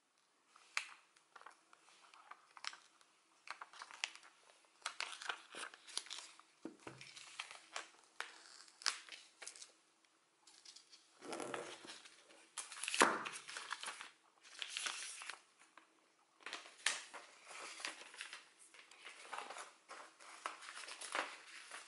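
Clear plastic shrink-wrap being torn and peeled off a new phone box and crumpled: an irregular run of crinkles and crackles, with louder rustling bursts about halfway through.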